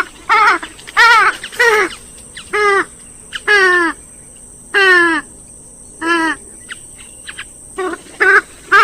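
Rail-family waterbird calling: a series of about a dozen short, nasal, wavering calls, each dropping in pitch, some given in quick pairs, with a short lull about two thirds of the way through.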